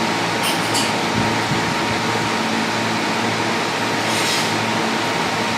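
Steady mechanical hum and hiss, like a fan running, with a few faint, brief high hisses about half a second and four seconds in.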